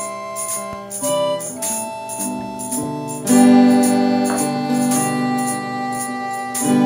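Background music with sustained chords over a steady light beat, getting louder about halfway through.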